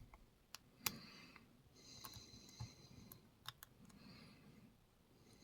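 Faint scattered clicks and soft scraping of a hook pick and tension wrench working the pins of a pin-tumbler padlock, with a few sharper ticks among them. The lock's feedback is muted, its keyway gummed up with old oil and dirt.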